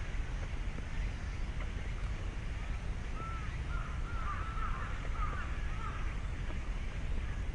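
A crow cawing several times in quick succession, starting about three seconds in, over a steady low rumble.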